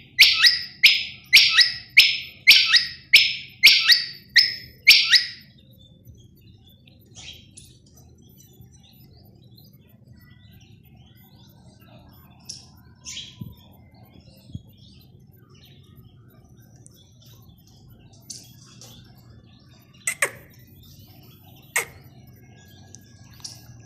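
Caged common quail calling: a run of about eight loud, evenly spaced calls, roughly one and a half a second, over the first five seconds, then only faint scattered chirps.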